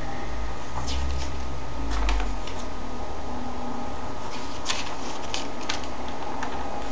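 Comic book pages being handled and turned: scattered light paper rustles and taps, with a low handling rumble about a second in, over a steady background hiss.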